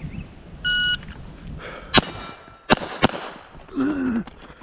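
A shot timer gives one start beep, and about a second later a Glock 44 .22 LR pistol fires three shots, the last two in quick succession.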